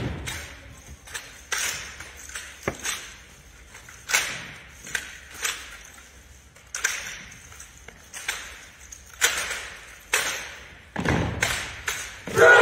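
Sharp slaps and thuds of an armed drill team's rifle handling and boot stomps on a wooden gym floor, about a dozen impacts at uneven intervals, each ringing out in the hall's echo.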